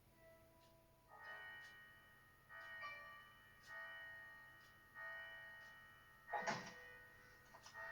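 Faint bell-like chimes struck four times, about a second and a quarter apart, each note ringing and slowly fading. A short burst of noise follows about six and a half seconds in.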